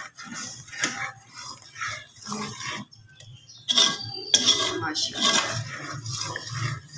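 A metal spoon scraping and clinking against the bottom and sides of a metal cooking pot as milky rice pudding (kheer) is stirred, here stirring in freshly added sugar. The strokes are irregular, pause briefly about three seconds in, then come back louder and quicker.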